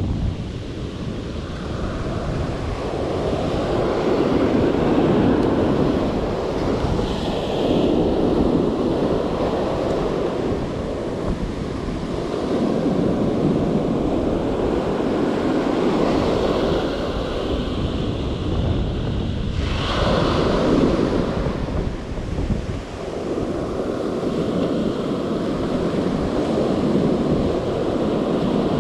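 Ocean surf breaking and washing up a sandy beach, rising and falling in swells every few seconds, with wind rumbling on the microphone.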